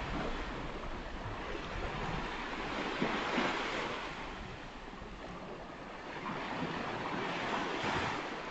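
Ocean surf on a beach: waves breaking and washing in, swelling once a few seconds in and again near the end.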